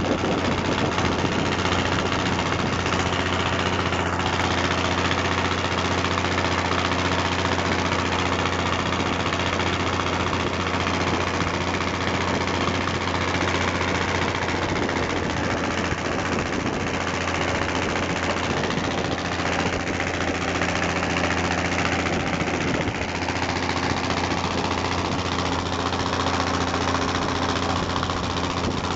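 Small wooden motorboat's engine running steadily at cruising speed, a constant hum, under the hiss of water and wind rushing past the hull.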